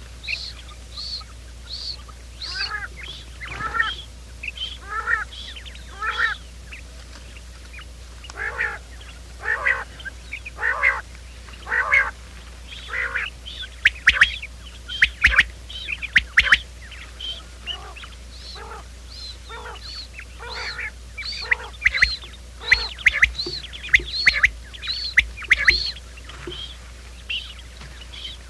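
Quail calling over and over in a dense series: short high chirps at about two a second mixed with lower notes that sweep downward. It is a recorded lure call used to draw quail into trapping nets. Sharp clicks, the loudest sounds, come in clusters in the middle and again near the end.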